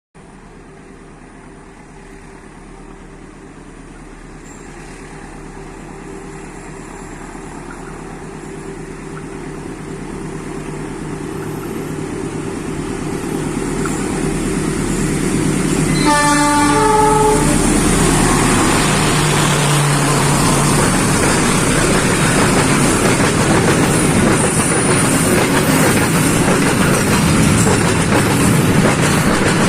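A Pertamina fuel tanker train approaching and passing, growing steadily louder over about sixteen seconds. The locomotive's horn gives one short friendly blast about halfway through. The loud rumble and clickety-clack of the passing wagons follow.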